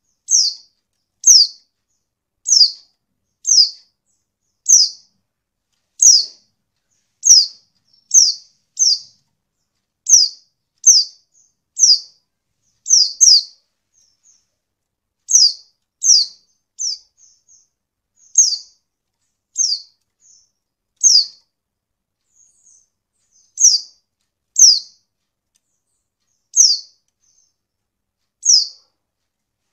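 Female white-eye (pleci) calling: a short, sharp, high chirp that sweeps downward, repeated about once every second or so with a few longer gaps and a faint twitter between some calls. It is a call used as bait to set male white-eyes answering and singing.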